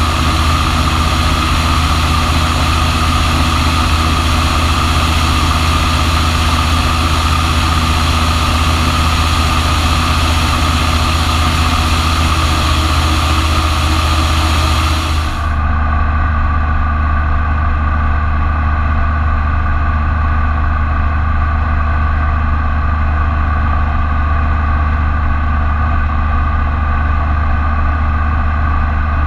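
Super Petrel amphibian's engine and propeller drone steadily in flight, a low hum with a stack of steady tones. At first it is heard from outside with a wind hiss over it; about fifteen seconds in the hiss cuts out and the drone turns duller, as heard from inside the cabin.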